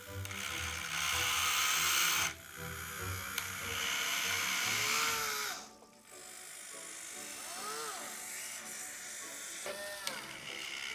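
Small electric motors of a home-made 1:32 scale RC Komatsu PC 450 excavator whirring in spells, with short whines that rise and fall in pitch several times, over background music.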